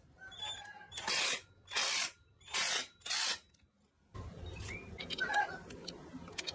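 Four short bursts of hissing spray in quick succession, each about half a second long, as from a pressurised spray nozzle.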